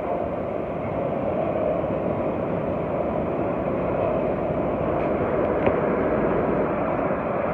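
New York City subway train running: a steady rumble, with a short click about five and a half seconds in.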